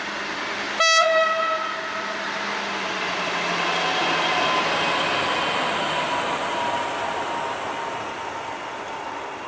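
Track-geometry measuring railcar built by Plasser Española giving one short horn toot about a second in as it passes slowly. Its running noise then swells and fades as it goes by, with a faint steady high whine.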